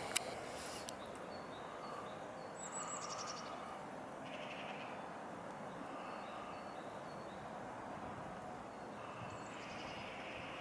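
Small birds chirping and calling over a steady background hiss, with a high rapid trill twice, several seconds apart. A single sharp click just after the start.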